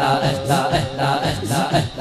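Devotional Islamic kalam: a male voice chanting "Allah" in a melodic line over a steady rhythmic beat.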